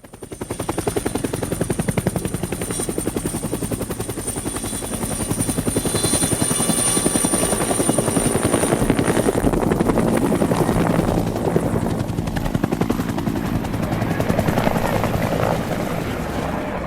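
Quadcopter drone rotors running, a loud fast-pulsing buzz with a steady high whine from the motors, rising quickly in the first second.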